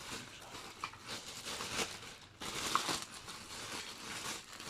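Plastic packaging crinkling and rustling in uneven spurts as it is handled.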